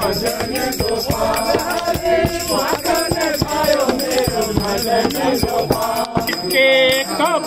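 Devotional Shiva bhajan: singing over steady drum beats and a shaking rattle.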